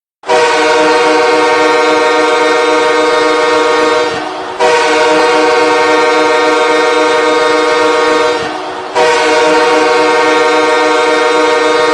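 Los Angeles Kings' hockey goal horn blowing three long, steady blasts of about four seconds each, separated by short gaps. The third blast is still sounding at the end.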